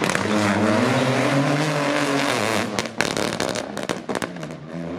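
Peugeot 208 rally car accelerating past, its engine note rising. After about two and a half seconds comes a rapid string of sharp pops and bangs from the exhaust, and near the end the engine pulls again.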